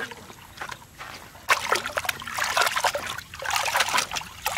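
Water splashing and sloshing in several bursts, each about a second long, with short pauses between.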